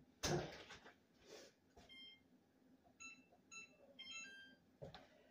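Electric range's control-panel keypad beeping as the oven timer is set: one short tone about two seconds in, then a quick run of short beeps a second later. A louder knock just after the start.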